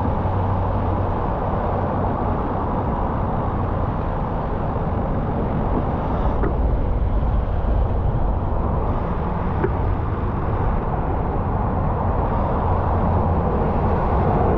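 Steady city road traffic, cars on wet pavement, heard from a slowly moving bicycle; the noise is mostly low-pitched, with two faint clicks about six and a half and ten seconds in.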